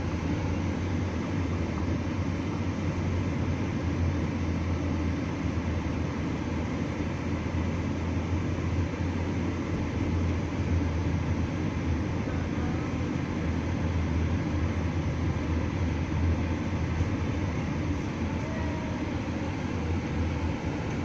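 Steady low rumble of a vehicle driving on the road, with tyre and engine noise heard from inside the cabin.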